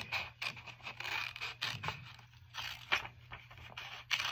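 Children's blue-handled scissors snipping through paper: a run of quick, irregular snips with the paper rustling between them.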